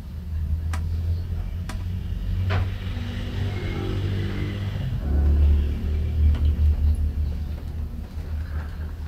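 Small temporary 10-watt speaker wired to an old Sharp CRT television, putting out a low rumbling sound that grows louder about halfway through. A few sharp clicks come in the first three seconds as the speaker leads are connected.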